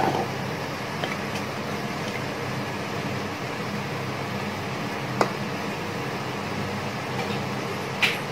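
Steady hum of an induction cooktop running, with a wooden spatula stirring curry in a pressure cooker and knocking against the pot a few times, a sharp knock about five seconds in and a louder one near the end.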